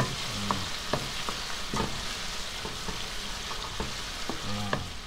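Diced salted fish deep-frying in hot oil in a wok over medium heat, a steady sizzle. A wooden spatula stirs through it, with scattered light knocks and scrapes against the pan.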